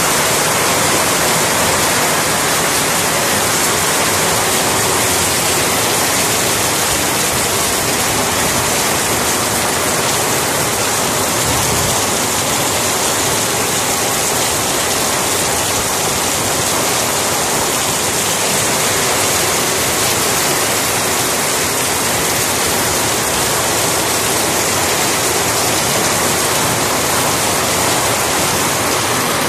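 Heavy rain falling in a downpour: a loud, steady hiss of rain on the ground and wet road.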